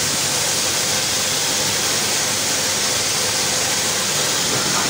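Steady hiss of a high-pressure water jet spraying from a lance fed by an electric plunger pump.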